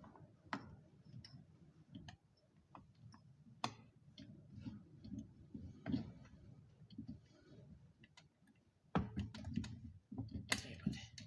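Irregular clicks, taps and handling noise of hands working on a Poulan P3816 chainsaw's throttle linkage and fuel line, which have got stuck. The handling grows louder and busier about nine seconds in.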